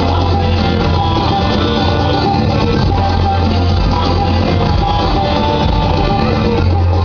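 Loud music played over a sonidero's mobile sound system, with long held bass notes under the rest of the music.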